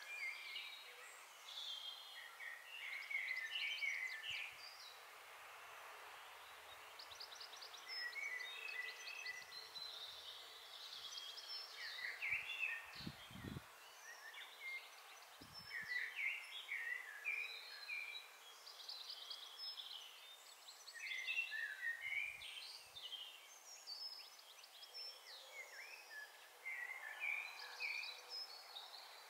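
Songbirds singing in short, varied chirping phrases every second or two over a steady background hiss, with a few soft low bumps about halfway through.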